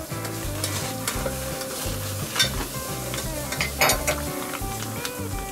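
Plastic vacuum-seal bag crinkling and rustling as it is cut open with a knife and pulled apart, with sharper crackles about two and a half and four seconds in.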